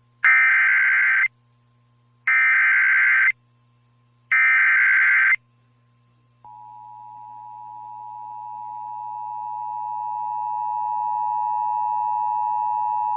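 Emergency Alert System activation: three one-second bursts of the warbling SAME digital header, then the two-tone EAS attention signal, a steady dual tone that fades up over several seconds. It announces an emergency alert broadcast.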